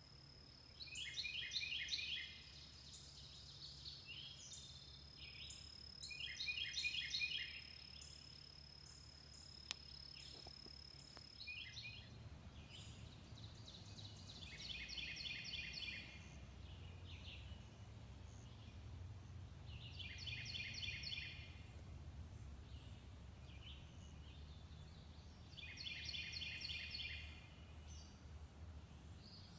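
A songbird singing the same short phrase of rapid, chopped notes five times, about every six seconds.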